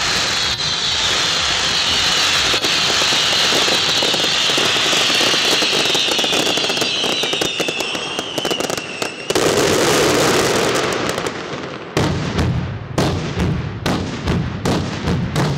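Fireworks display finale: dense crackling with a high hiss that slowly drops in pitch, then from about twelve seconds in a rapid run of sharp bangs, several a second.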